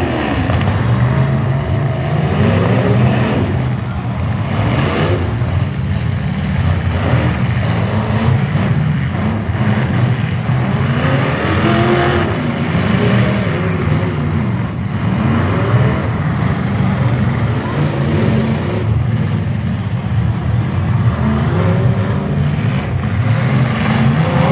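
Several demolition derby cars' engines running and revving up and down over and over, a loud, continuous mass of engine noise.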